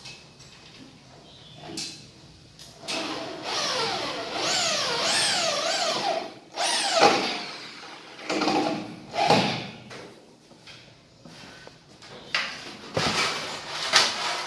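Corded electric drill run in several short bursts, the motor's pitch rising and falling repeatedly as the trigger is squeezed and eased off. A few sharp knocks near the end.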